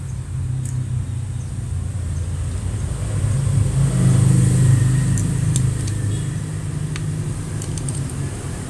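A motor vehicle's engine running, growing louder about three seconds in and easing off after five, with a few light metallic clicks as steel clutch plates are handled.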